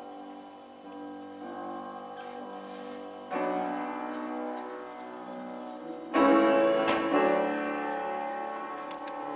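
Piano playing slow, held chords that change every few seconds, the loudest chord struck about six seconds in.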